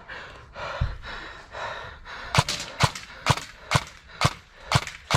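Airsoft gun shots: about seven sharp single cracks at roughly two a second, starting about halfway through, after a couple of seconds of soft rustling.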